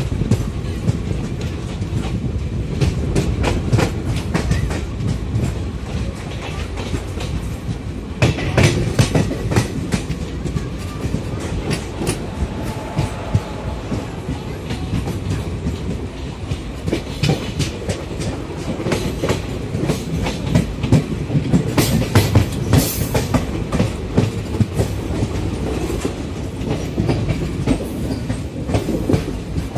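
Wheels of a passenger express train running at speed, heard from an open coach door: a steady rumble with clickety-clack as the wheels strike rail joints. There are bursts of louder clatter about eight seconds in and again from about seventeen to twenty-four seconds, as the train runs through the station's points without stopping.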